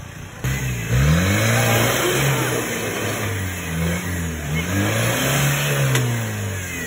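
Off-road 4x4 vehicle's engine revving hard, its pitch rising and falling several times as the throttle is worked. It comes in suddenly about half a second in.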